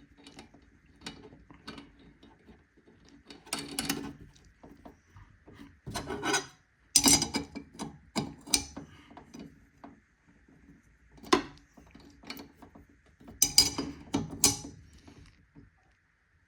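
Blade-tightening on a DeWalt 7491 table saw's arbor: scattered metal clicks, scrapes and clatter of the wrench and nut, in several short bursts, the loudest about seven seconds in and again around thirteen to fourteen seconds.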